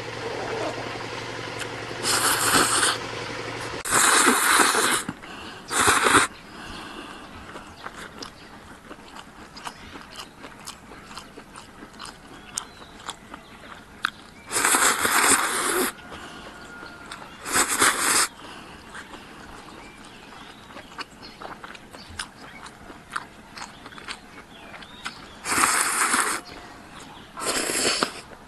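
A person slurping thick corn noodles (jinsi mian) dressed with fried bean sauce: about seven loud slurps of around a second each, with quiet chewing and small clicks in between.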